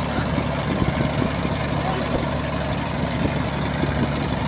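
Regional riverboat's diesel engine running steadily: a constant low drone under a steady hiss.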